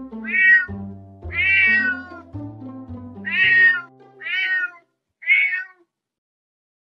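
A cat meowing five times in short, high calls, over soft background music that stops about five seconds in.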